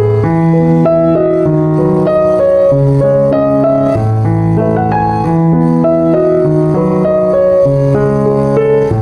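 Background piano music: sustained chords over a steady bass line changing about every second or two.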